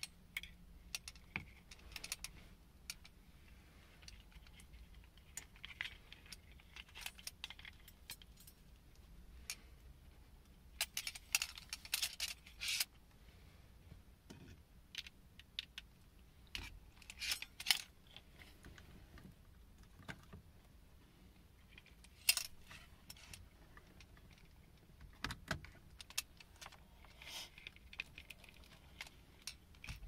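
Irregular small clicks, taps and rattles from hands handling metal steering-wheel hub parts and plastic wiring connectors, with a few busier bursts of clattering.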